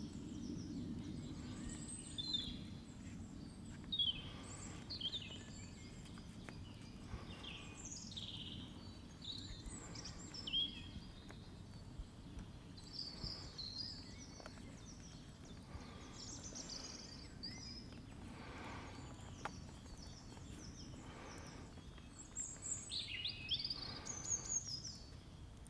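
Wild birds chirping and singing in short scattered phrases over a faint steady low rumble of outdoor background noise.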